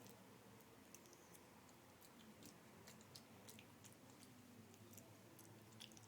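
Faint, irregular clicks and crunches of a monkey chewing food.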